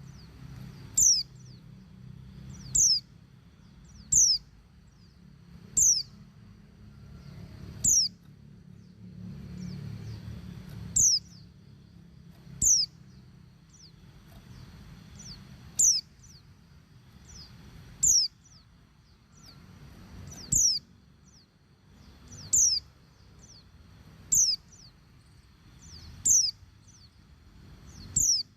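Female white-eye (pleci) calling: a short, high, falling chirp repeated every one and a half to two seconds, sometimes with a fainter note after it. It is the call of a female calling for a male.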